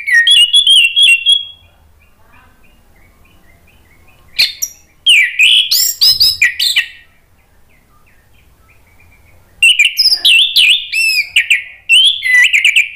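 Caged orange-headed thrush singing in full voice, in three loud bouts of fast, varied whistled phrases with short pauses between them.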